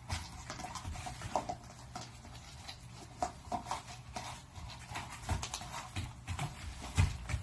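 Pungsan dog puppies play-fighting over food: scuffling with many short clicks and taps, and a few brief growls.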